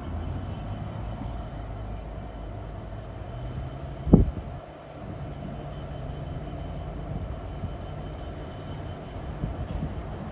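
Class 66 diesel locomotive's two-stroke V12 engine running low and steady as the locomotive creeps forward with its wagons. A single thump comes about four seconds in.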